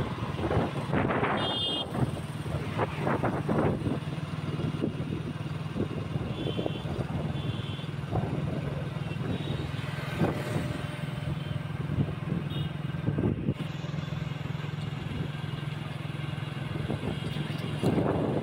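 Motorbike engine running steadily at cruising speed, with wind and road noise rushing over the microphone. A few short high-pitched beeps sound about a second in, midway and near the end.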